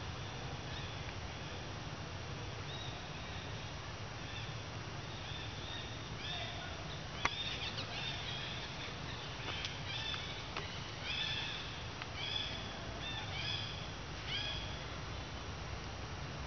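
A series of short, arched, high-pitched animal calls, sparse at first and coming thick and fast from about seven seconds in, over a steady low hum, with a sharp click about seven seconds in.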